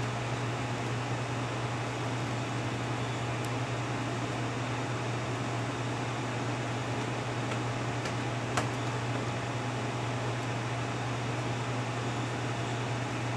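Steady fan hum with an even hiss of room noise. One light click about eight and a half seconds in, from the small metal locomotive parts being handled.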